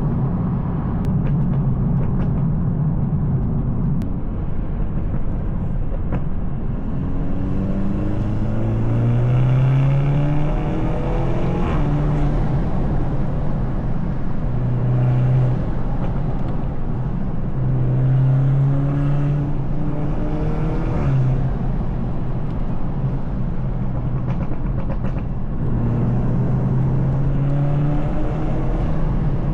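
BMW 220i's B48 turbocharged 2.0-litre four-cylinder, stage 2 tuned with a free-flow downpipe and M240i exhaust, driving on the road: the engine note climbs about a third of the way in, then holds and dips and rises again through several gear changes, over steady tyre and road rumble.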